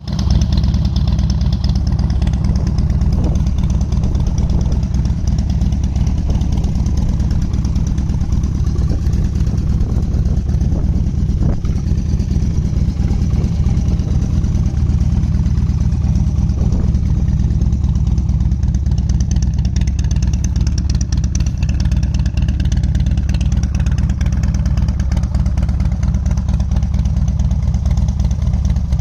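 2013 Harley-Davidson Dyna FXDBP's air-cooled V-twin idling steadily through a de-catted Wide Glide head pipe and Rush slip-on mufflers, with a loud, low exhaust note.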